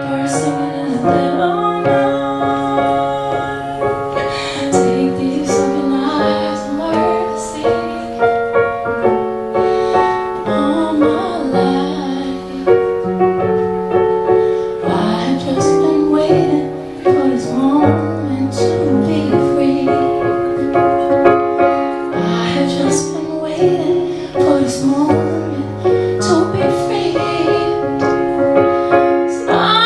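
Live piano music, chords and melody played in sustained notes, with a woman's singing voice over it at times.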